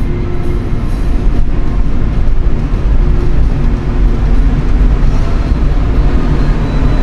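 Steady, loud low rumble of a minivan moving slowly onto a ferry's car deck, heard from inside the cabin.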